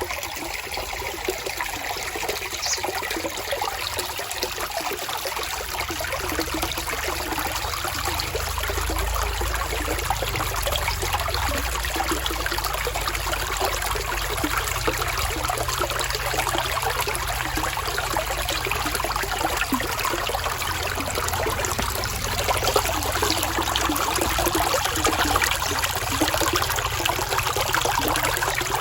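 Running water trickling and splashing steadily, with a low rumble underneath from several seconds in.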